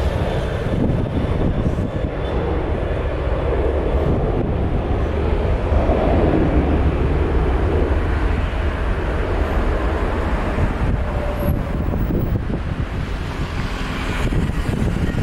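Twin jet engines of a Lion Air Boeing 737 at takeoff power during its takeoff roll, a steady distant rumble, with wind buffeting the microphone.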